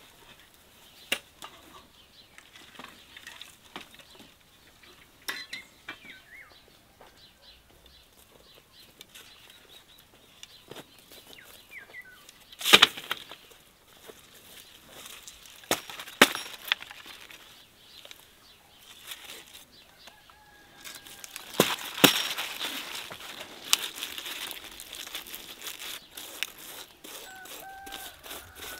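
Rustling and crackling of large sunflower leaves and stalks, with a few sharp snaps as sunflower heads are cut off, the loudest near the middle and again about two-thirds of the way through. Birds call briefly now and then.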